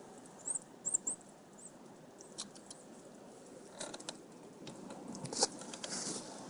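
A small bird gives four short, high chirps in the first two seconds. Scattered light clicks and taps follow, with wind hiss building toward the end.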